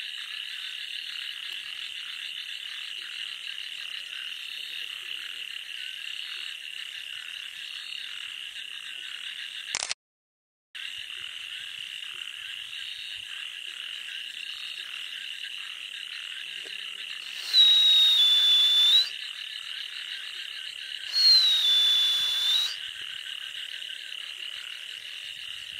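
Night chorus of frogs calling steadily in a paddy field, a dense high-pitched trill. It cuts out for about a second some ten seconds in. Later come two much louder high calls, each about a second and a half long, dipping slightly in pitch.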